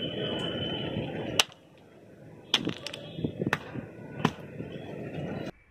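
Chunks of dry ice handled on a tiled floor: a steady rushing noise for about a second and a half ends in a sharp click, followed by a few separate sharp knocks and clicks as pieces touch the tiles and each other.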